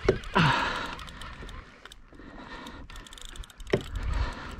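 Fishing reel clicking in quick small ticks while a hooked fish is being fought, with a short hiss in the first second.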